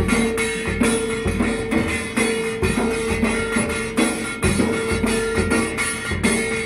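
Dhol drums beating a steady, driving rhythm with strong low thuds and jingling metal percussion, over a steady held note.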